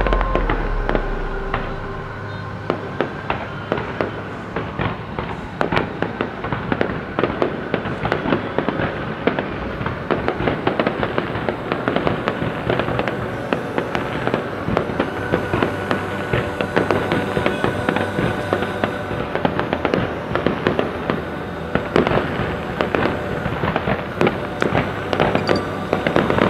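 Fireworks display: a dense, continuous run of popping and crackling bangs from bursting shells. A low boom dies away in the first couple of seconds.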